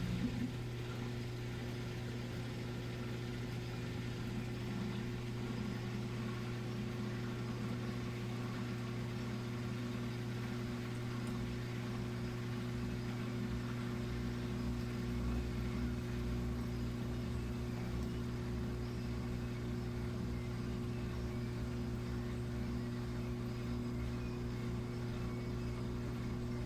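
Midea Wave-Agitator top-loading washing machine running, a steady hum at an even pitch and level.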